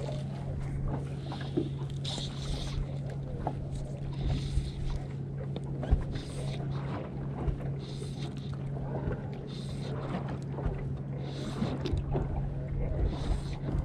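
Small waves lapping and splashing against the boat's hull every second or two, over a steady low hum from the bow-mounted electric trolling motor.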